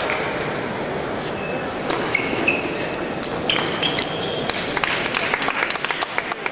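Table tennis rally: a celluloid ball clicking off paddles and the table, with short squeaks of players' shoes on the court floor and the murmur of a large hall.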